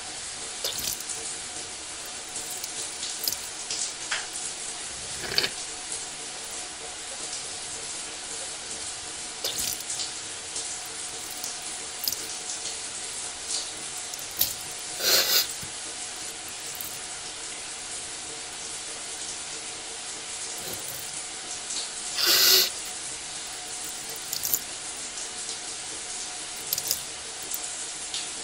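Shower running: a steady hiss of falling water, with brief louder surges of water about 15 and 22 seconds in.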